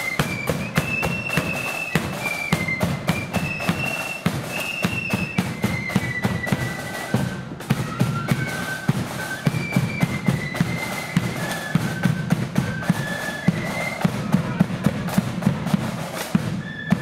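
Blood-and-thunder marching flute band playing a tune in unison on flutes over rapid, crisp side-drum strikes and a pounding bass drum.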